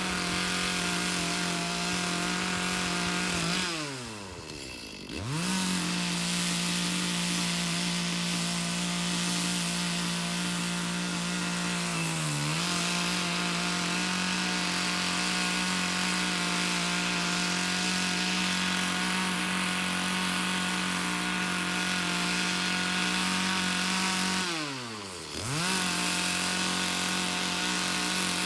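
Chainsaw running at high revs through fresh-cut wood. Its pitch drops away and climbs back up twice, about four seconds in and near the end, as the throttle is let off and opened again. It dips briefly in the middle.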